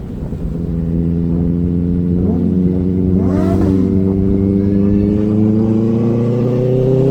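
Inline-four sport motorcycle engine pulling steadily under light throttle, its pitch rising slowly as the bike gains speed. Around three seconds in, another engine briefly rises and falls in pitch.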